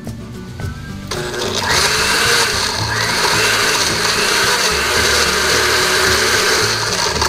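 Countertop blender starting up about a second in and running steadily, crushing ice cubes with milk and chocolate powder in its glass jar.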